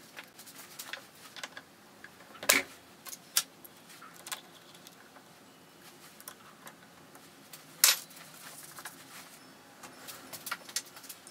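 Sparse metal clicks and clinks as a cast aluminium handwheel is slid onto the cross-slide shaft of a mini lathe and fastened with hand tools. Two sharper clacks stand out, about two and a half seconds in and again near eight seconds.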